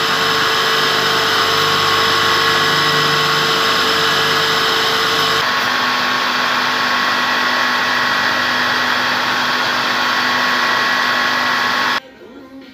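Belt grinder running with steel held against the belt: a loud, steady hiss with a whine of fixed tones. The tones change abruptly about five and a half seconds in, and the sound cuts off suddenly near the end.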